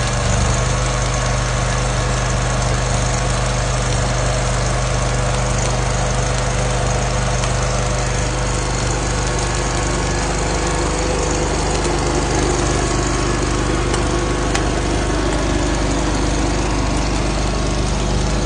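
An engine running at a steady speed with a deep, even hum, under a constant harsh hiss.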